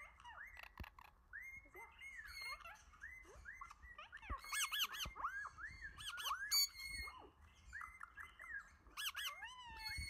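Parrot chirping and whistling: a quick, continuous run of short rising-and-falling chirps, with bursts of shriller, louder calls around the middle and again near the end.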